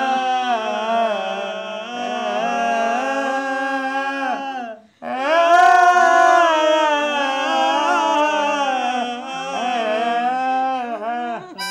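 A voice singing a drawn-out, wavering, ornamented lament, weeping set to a folk tune. It breaks off briefly about five seconds in, then carries on.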